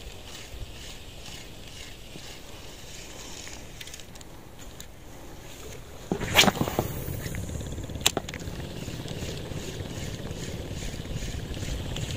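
Small spinning fishing reel being cranked to retrieve a lure: a soft rhythmic ticking over a steady hiss of wind and water, which fades after about four seconds. About six seconds in there is a loud knock with a rustle, and a sharp click about two seconds later.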